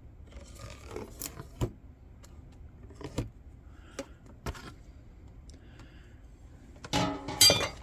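Mica sheet and a square handled on a workbench while lining up measured marks: scattered light taps and clicks with some rustling, then a louder squeaky scrape near the end.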